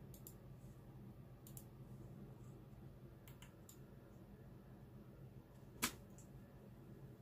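Quiet room hum with a few light clicks and taps from a northern hawk owl moving about on a wooden shelf and a plush toy; the sharpest click comes about six seconds in, as the owl shifts and opens its wings.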